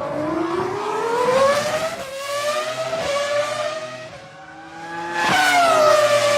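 Ferrari F2004 Formula 1 car's 3-litre V10 screaming at high revs, pitch climbing as it accelerates and dropping sharply at upshifts about two, three and four seconds in. About five seconds in it suddenly gets louder and the pitch falls away.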